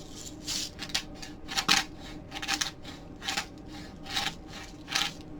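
Pepper being added to a bowl of cornstarch coating mix: about eight short, irregular, scratchy strokes with no steady beat.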